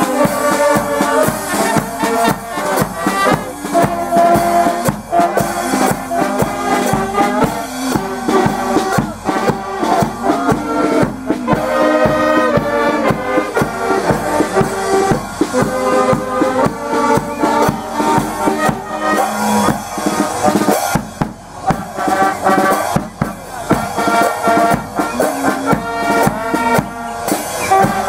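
Brass band music with a drum kit: horns playing a melody over a steady drumbeat with bass drum.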